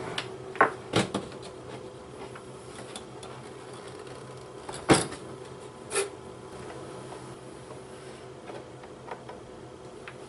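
Hard plastic knocks and clunks as an egg incubator's plastic lid is lifted off and set down and its egg turner tray is handled. There are a couple of light clicks near the start, the loudest knock about five seconds in and another a second later, over a faint steady hum.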